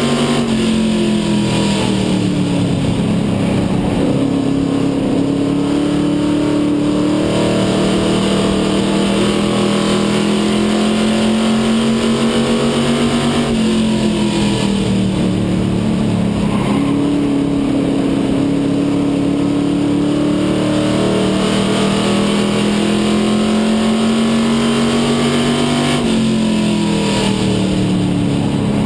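Dare Stock race car's engine heard from inside the cockpit while racing on a short oval. The engine note drops as the car lifts into a turn about a second in, then climbs steadily down the straight. The same drop and climb come again about halfway through and near the end.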